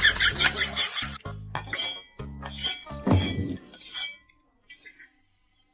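Fork clinking and scraping against a plate as food is scooped up and eaten, over light background music.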